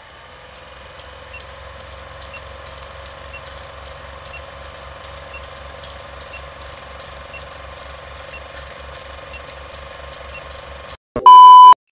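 Film-leader countdown sound effect: the steady clatter of a film projector, about four clicks a second, with a faint tick each second, ending in a loud, steady beep of about half a second near the end.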